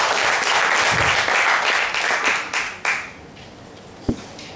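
Congregation applauding, the clapping thinning out to a few last scattered claps about two to three seconds in and then stopping. A single sharp knock near the end.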